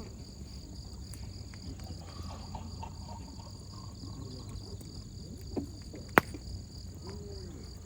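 Insects chirring steadily in the background, with one sharp pop from the wood fire about six seconds in.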